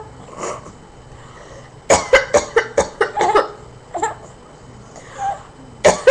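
A woman coughing on purpose in two quick strings of short, sharp coughs, about a second in and again near the end. Between the strings, a baby gives two short, high-pitched laughs.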